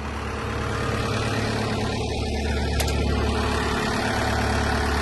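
Cat diesel engine of a Cat 299D2 tracked skid steer running steadily while the machine sits still, a little louder after the first second.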